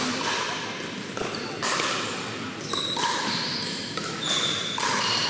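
Hard plastic pickleballs being struck by paddles in a fast rally, a quick irregular run of sharp pops that echo in a large gym.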